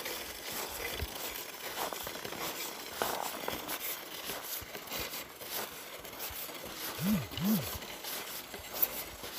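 Crunching and crackling of footsteps on snow mixed with rustling, with two short low hums close together about seven seconds in, each rising then falling in pitch.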